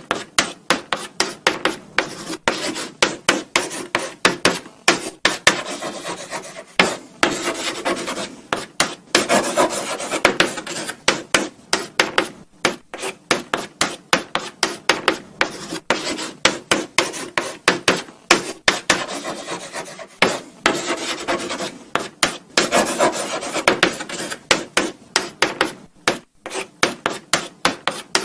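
Chalk writing on a blackboard: quick scratchy strokes and taps, several a second, with brief pauses between words.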